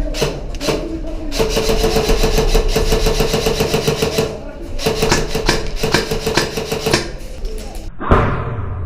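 Airsoft electric gun firing on full auto in two long bursts of rapid shots, each with a steady gearbox whine under it. A single sharp thud comes near the end.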